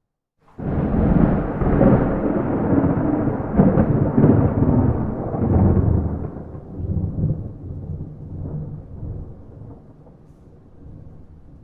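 A clap of thunder breaks in suddenly about half a second in and rolls on as a long, deep rumble with several swells, loudest over the first six seconds, then slowly fading. No rain is heard with it.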